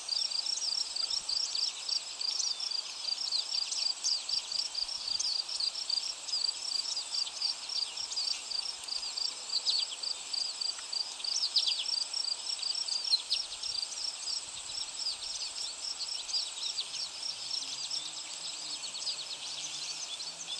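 Outdoor birdsong: a high chirp repeated about four times a second without a break, with quick falling calls from other birds over it and a steady high insect drone behind.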